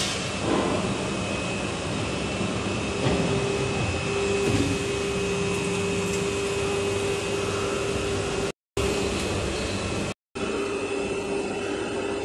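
CHENHSONG hydraulic injection moulding machine running: a steady mechanical whir, with a steady hum that sets in about three seconds in. The sound cuts out completely twice for a moment, a little after two-thirds of the way through.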